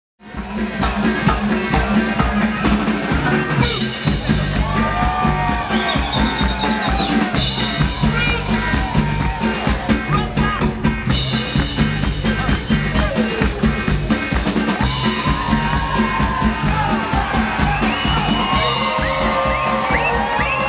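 Live cumbia band playing loudly: a steady drum kit and bass beat with horn melodies over it. The music cuts in suddenly at the start.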